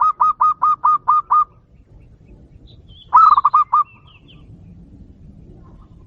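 Zebra dove (perkutut) cooing: a fast run of short, evenly repeated notes that stops about a second and a half in, then a second, shorter run about three seconds in.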